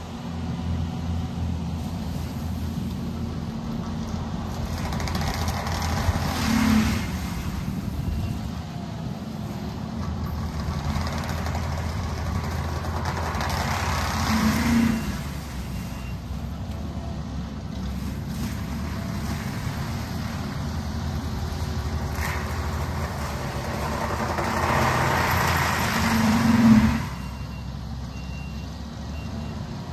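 Diesel engine of a compact track loader running a forestry mulcher head: a steady drone that swells three times into a louder grinding rush as the head works into brush, each swell building for a few seconds and then dropping off sharply.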